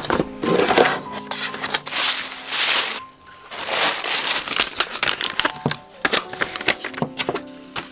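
Pink tissue paper rustling and crinkling as it is handled and folded in a cardboard mailer box, in loud bursts, with a run of light knocks and clicks from the box and items being set down near the end.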